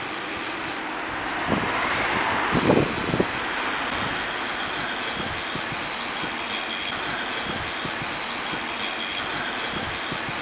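Steady rushing noise of bicycles rolling along a paved path, heard from a rider's camera with wind on the microphone, with a few knocks and rattles about two to three seconds in.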